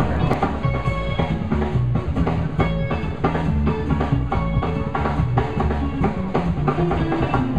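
Live band playing on an outdoor stage: a drum kit keeps a steady beat with snare and bass-drum hits under bass and guitar.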